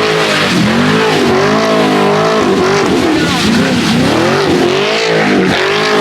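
Car engine revved hard over and over while the car slides in circles on wet pavement; the engine note rises and falls about once a second.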